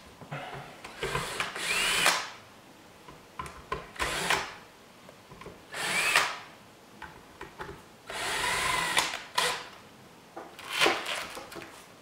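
Cordless drill/driver working the screws on a ceiling fan's motor housing, in about five short bursts with pauses between. The motor whine climbs in pitch as a burst starts, and the longest burst runs about a second, two-thirds of the way in.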